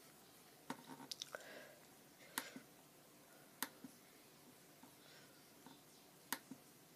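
Faint, sharp clicks of a laptop touchpad: a quick run of three or four in the first second and a half, then single clicks about two and a half, three and a half and six and a half seconds in.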